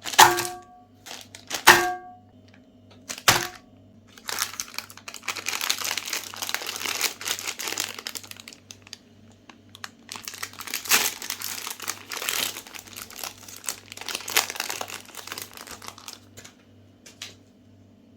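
Plastic ice cream bar wrappers crinkling and tearing in two long stretches, after three sharp knocks in the first few seconds that each ring briefly with a short tone.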